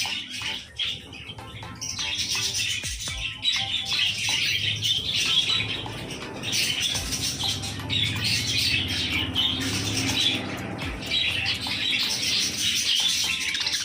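A baby budgerigar chirping and chattering continuously in quick, high twitters.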